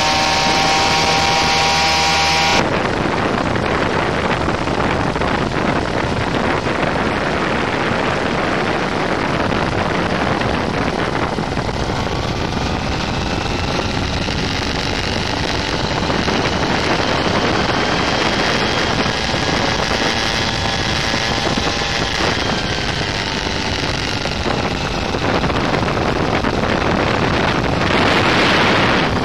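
The Bluebird ultralight's 16-horsepower paramotor engine running steadily, a clear engine tone at first. About two and a half seconds in the sound changes abruptly to a dense rush of wind over the microphone in flight, with the engine still running beneath it and its pitch drifting slightly up and down.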